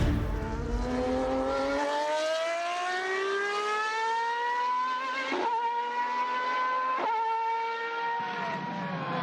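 Car engine under hard acceleration, its note climbing steadily for several seconds. It then holds level with two brief sharp breaks and drops away near the end as the throttle comes off.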